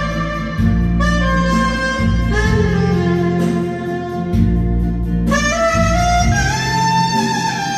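Saxophone playing a slow ballad melody in long held notes over a backing accompaniment with a steady bass, a new phrase starting about five seconds in.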